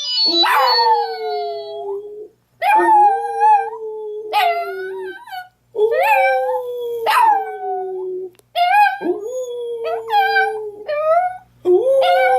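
A dog howling: about five long, drawn-out howls in a row. Each starts with a sharp rising yelp and is then held at a steady pitch, with brief breaks for breath between them.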